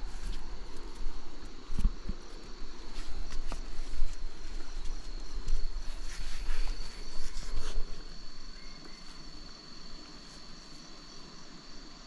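Steady high-pitched insect chorus, with irregular rustling and a few knocks over the first eight seconds, then quieter.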